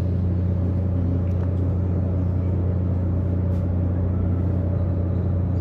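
Cargo ship's engines running at a steady pace, a constant low hum with a fainter higher tone above it, as the ship makes ready to leave the berth.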